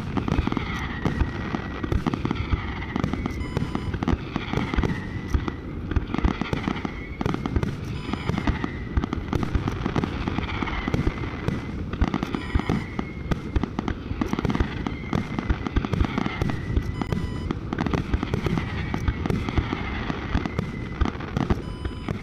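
Fireworks display: dense crackling and popping of bursting shells, with a falling whistle that comes back evenly about every two seconds.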